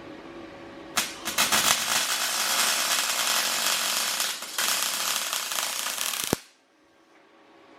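Welding arc crackling and spitting in a steady run of about five seconds, with a short break partway through, then cutting off abruptly as the arc is stopped.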